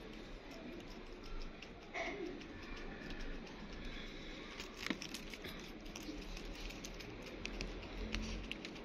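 Hamster giving a short squeak about two seconds in, among scattered light clicks and scratches.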